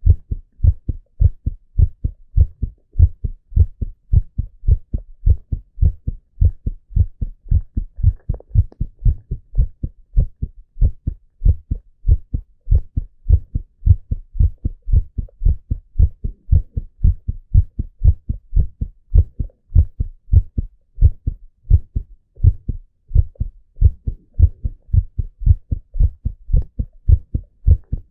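A man's heart beating steadily and regularly: a continuous run of low lub-dub thuds with no pauses.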